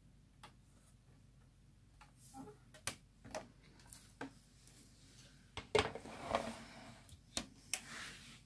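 Thin metal and card shims being handled and laid onto a hot-foil press's steel base plate: scattered light clicks and clacks, the sharpest about six seconds in, with a few brief sliding rustles.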